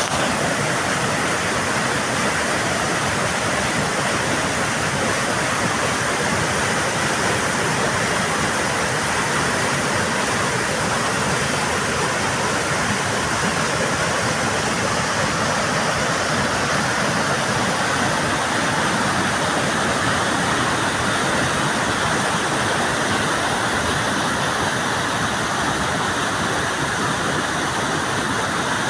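Mountain creek rushing over rocks, a loud, steady rush of water.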